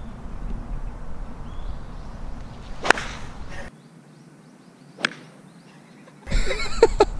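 A golf club strikes the ball on a tee shot: one sharp crack about three seconds in, and the same strike heard again about two seconds later from a second angle. A low rumble lies under the first crack.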